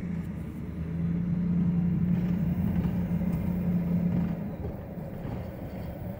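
Ford F-150 4x4 pickup driving: steady engine and road noise, with a hum that fades a little past four seconds in. There is no rubbing or grinding from the front wheel end, because the vacuum-held hub actuator has retracted and no longer rubs the wheel bearing.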